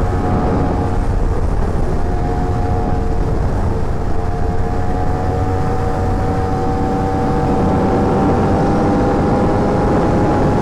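Sport motorcycle engine pulling at a steady high speed, its note holding nearly constant and creeping slightly higher, under a heavy rush of wind noise.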